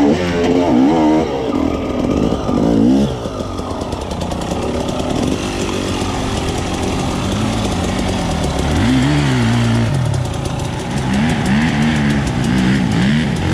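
Enduro dirt bike engines revving hard under load on a steep forest climb, the revs rising and falling every second or two. The engine sound eases to a steadier hum for a few seconds in the middle, then the revving picks up again near the end as the bikes come up the slope.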